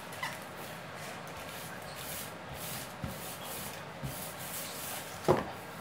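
Baking paper rubbing and scraping as seasoned ground chicken is rolled and pressed out thin between the sheets, with a few small clicks and one sharp knock near the end.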